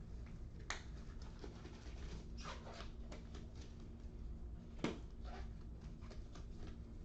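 Faint scattered clicks and rustles over a steady low electrical hum, with one sharper knock about five seconds in.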